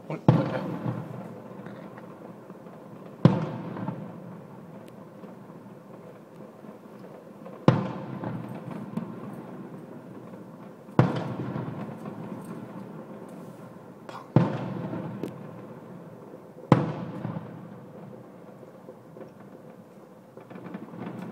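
Aerial firework shells bursting: six loud bangs a few seconds apart, each followed by a rumbling tail that fades over a second or two.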